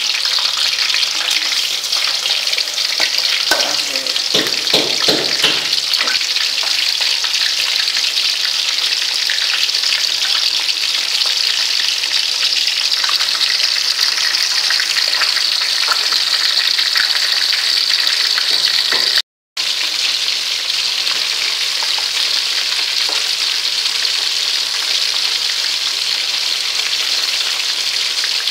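Pieces of fish deep-frying in hot oil in a wok: a steady, loud sizzle, with a cluster of sharper pops about four to six seconds in. The sound cuts out completely for a split second about nineteen seconds in.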